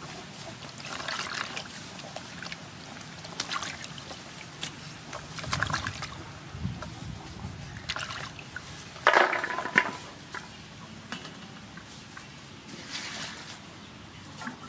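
Hands swishing and rubbing vegetables and mushrooms in water in a large aluminium basin: irregular splashing and sloshing, with a louder splash about nine seconds in.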